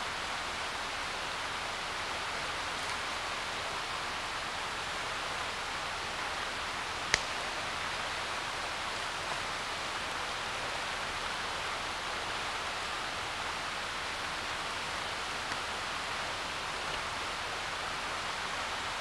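Steady rush of a fast-flowing mountain creek, with one sharp click about seven seconds in.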